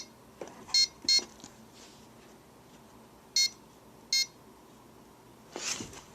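Bissell SmartClean robot vacuum beeping: about five short, high electronic beeps, mostly in pairs with pauses between. Its buttons are being pressed to switch it on, but it does not start.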